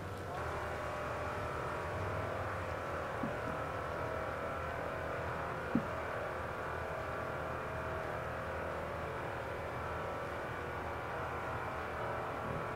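A steady engine-like drone with a hum of several held pitches, with two sharp snaps from burning wood about three and six seconds in.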